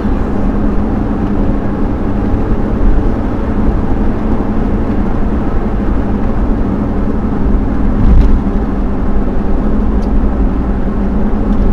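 Steady road and engine noise of a car cruising at motorway speed, heard from inside the cabin, with a brief low bump about eight seconds in.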